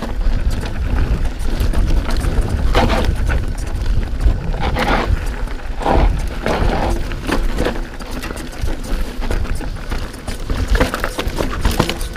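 A Canyon Spectral AL full-suspension mountain bike riding down rocky, loose singletrack: the tyres crunch over stones, and the frame, chain and suspension knock and rattle unevenly over bumps. Wind rumbles on the microphone underneath.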